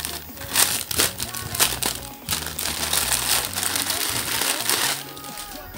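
Clear plastic packaging bag crinkling and rustling as it is handled, stopping about five seconds in, over background music with steady low notes.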